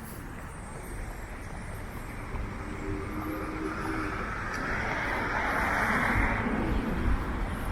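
A motor vehicle driving past on the street, its engine and tyre noise swelling to a peak about six seconds in and then easing off.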